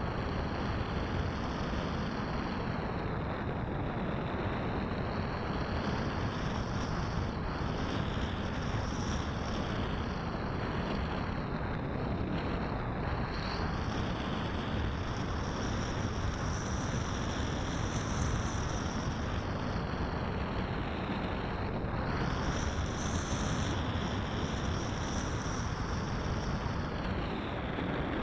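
Steady rush of airflow buffeting a camera microphone riding on a Great Planes Fling 2M electric RC sailplane in flight. A faint high whine under the rush slowly wavers up and down in pitch.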